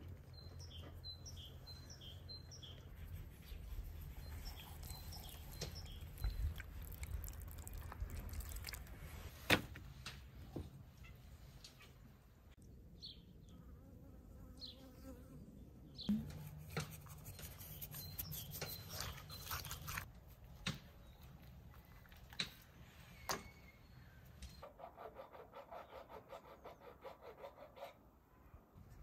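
Quiet outdoor ambience: a low steady hum, a few faint bird chirps and scattered clicks, then an insect buzzing close by for a few seconds near the end.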